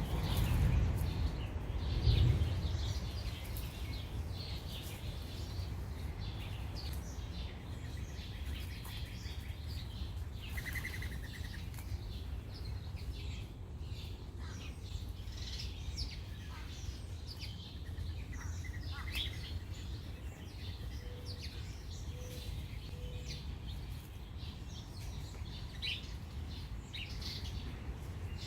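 Small backyard birds chirping in many short, scattered calls, over a steady low background hum. A louder low rumble comes in the first couple of seconds.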